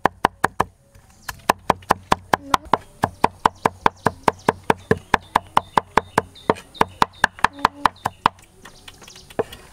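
Kitchen knife chopping quickly on a wooden cutting board, mincing, about five even strokes a second. The chopping stops briefly about a second in, then runs on and stops about eight seconds in.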